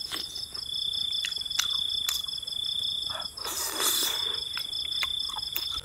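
Night insects, crickets, trilling steadily in a high, pulsing chorus, with scattered wet clicks and smacks of someone chewing food close by and a brief rustle a little past halfway.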